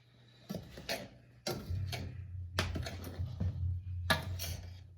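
A utensil scraping and knocking in a metal pan of cornmeal, turning it as it roasts: irregular strokes about once a second. A steady low hum sets in about a second and a half in.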